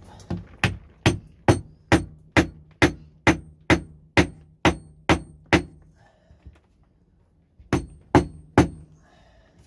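Wooden joiner's mallet knocking a glued wooden bowtie (butterfly key) down into its chiseled pocket. There is an even run of about a dozen sharp knocks, roughly two a second, then a pause of about two seconds and three more knocks near the end.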